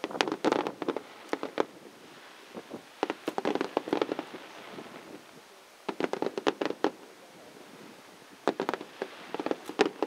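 Fireworks going off in four quick volleys of sharp bangs and crackles, each a second or so long, a couple of seconds apart.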